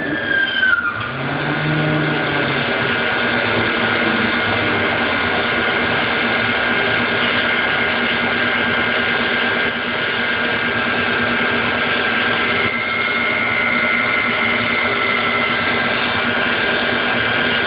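Compressor of a McQuay/Daikin EWLDJ235-SS water-cooled chiller running steadily: a dense mechanical noise with a few steady whining tones, a higher whine coming in about two-thirds of the way through. This is the compressor sound that the uploader finds strange.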